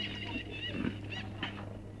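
Snowshoe cat making a few short, squeaky high-pitched chirps in quick succession, a voice the owner likens to a baby alligator's, demanding attention while being stroked. A soft bump of handling just before the middle.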